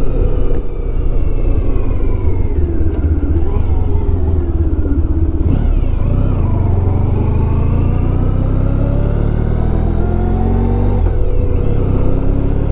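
1994 Honda ST1100's V4 engine running under way. Its pitch falls early on, then climbs steadily as the bike accelerates, drops near the end at a gear change and climbs again, over a heavy wind rumble on the microphone.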